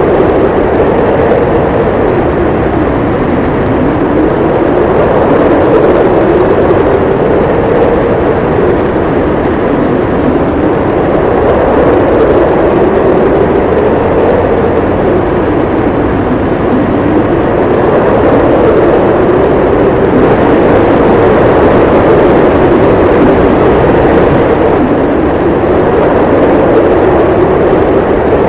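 Howling blizzard wind, a loud steady rush with a moaning tone that slowly rises and falls in pitch every few seconds.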